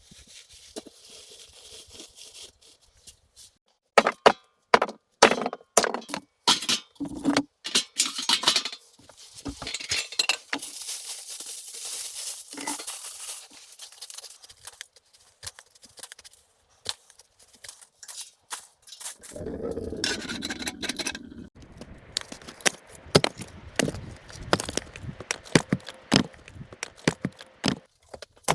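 A run of handling noises: irregular knocks, clinks and scrapes of hard objects being moved and set down, with a stretch of hissing about a third of the way in and a denser rustling and scraping in the last third.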